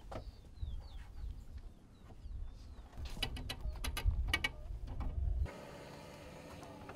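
Short falling bird chirps over a low rumble, then a quick run of metallic clicks and rattles about midway as the Airbus H145's Fenestron tail-rotor blades are handled during a ground check. A faint steady hum follows near the end.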